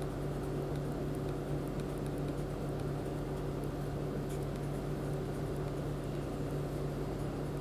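Steady low background hum with a faint hiss, the recording's own noise floor; nothing else sounds.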